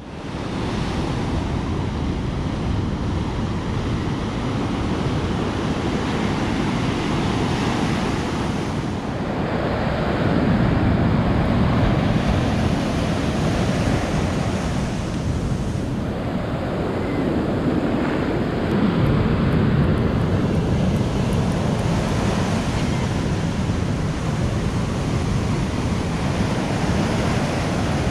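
Ocean surf breaking and washing up a beach, with wind buffeting the microphone. The wash is steady, with louder surges about ten seconds in and again near nineteen seconds.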